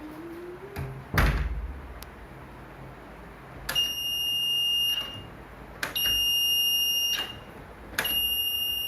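Homemade door-handle alarm: a battery-powered buzzer sounds a high, steady beep three times, each about a second long, as the door handle is gripped and the copper-wire contact closes the circuit. A loud thump comes about a second in.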